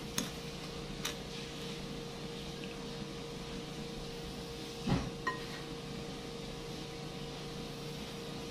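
Light ticks of a plastic spoon against a glass mixing bowl as graham cracker crumbs are stirred, then about five seconds in a dull knock and a short ringing clink as the condensed milk can touches the bowl, over a steady hum.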